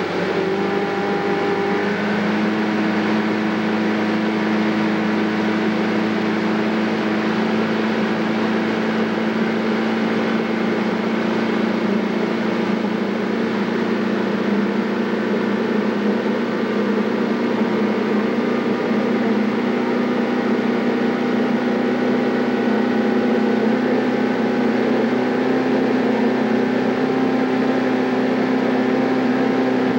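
Motorboat engine running steadily under way while towing, over a hiss of wake and wind. Its note shifts slightly about two seconds in, then holds steady.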